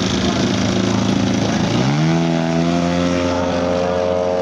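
Large-scale radio-controlled model airplane's propeller engine opening up to full throttle for takeoff. The engine note climbs sharply about two seconds in, then holds high and steady as the model lifts off the grass.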